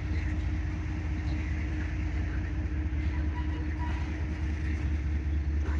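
Freight train cars rolling past, giving a steady low rumble of wheels on rail.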